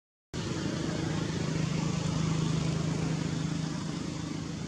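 A motor running steadily with a low, even hum, starting abruptly about a third of a second in.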